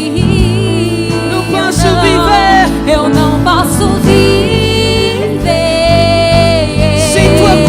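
Live gospel worship music: a band playing with a singer holding long, wavering notes over a steady bass.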